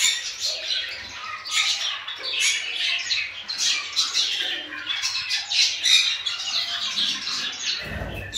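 Cockatiels chirping and squawking in a rapid, overlapping chatter of short high calls. A low thump near the end.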